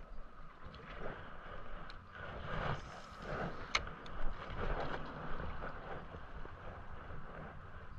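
Small waves lapping and sloshing against shoreline rocks, with wind rumbling on the microphone and a few faint clicks.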